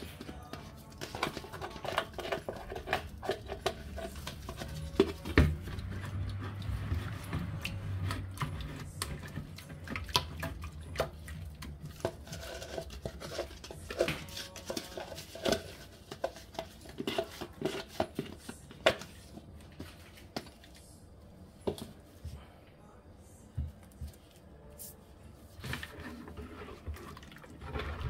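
Lye beads being tapped and scraped out of a thin plastic tub with a silicone spatula into a plastic bucket of liquid, then stirred: irregular small clicks, taps and light plastic knocks, over a low hum in about the first half.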